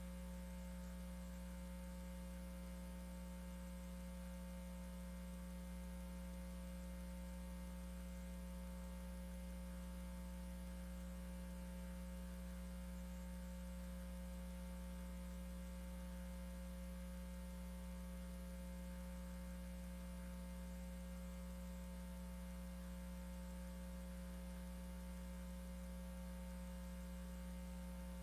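Steady electrical mains hum: a low tone with a buzz of higher overtones that never changes. No crowd or ring sounds come through.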